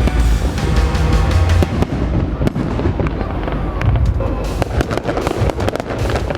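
Fireworks going off: a rapid run of bangs and crackles, with loud music playing alongside.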